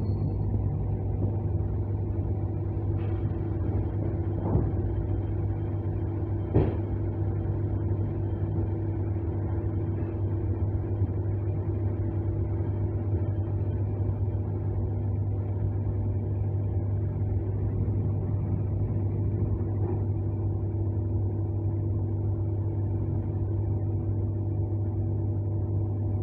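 ER9M electric multiple unit running between stations, heard from inside the passenger car: a steady low hum with several held tones over a rumble. A few short knocks come in the first seven seconds, the sharpest about six and a half seconds in.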